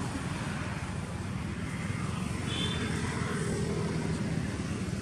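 Steady low outdoor rumble, with a brief high double tone about two and a half seconds in.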